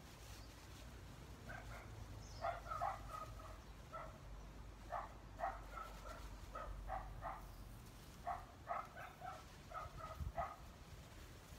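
An animal calling: short, repeated calls in irregular runs of two to four, starting about a second and a half in and carrying on until near the end.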